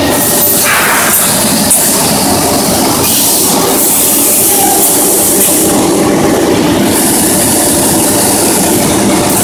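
Automatic grinding and plate-washing machine for metal discs running steadily: a loud, continuous mechanical clatter and hum. A short hiss comes about half a second in.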